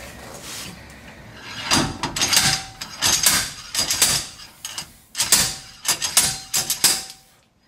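Slide hammer bearing puller jerked against its stop over and over, a run of sharp metallic knocks with a short ring, in clusters. It is knocking the press-in wheel bearing out of a Ford 8.8 rear axle housing until the bearing comes free.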